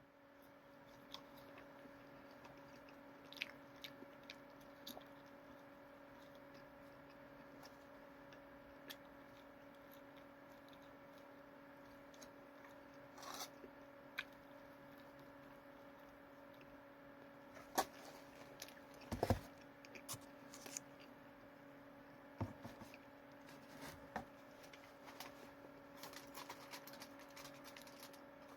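A person eating quietly: faint chewing and crunching with scattered small clicks and rustles, a few louder ones past the middle, over a steady low electrical hum.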